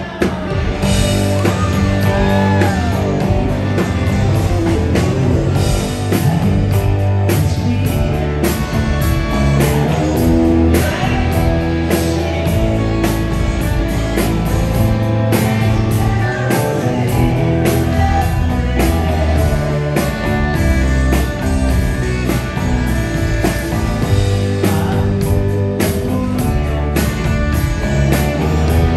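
Rock band playing a slow song live: guitars and bass, with the drum kit coming in about six seconds in.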